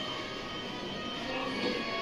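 Background music playing at a steady level.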